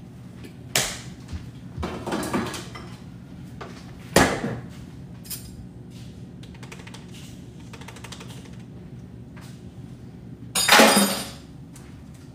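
Kitchen clatter while making coffee: a mug, spoon and containers knocked and set down on a countertop in a few separate clinks and knocks, the longest and loudest clatter near the end, over a low steady hum.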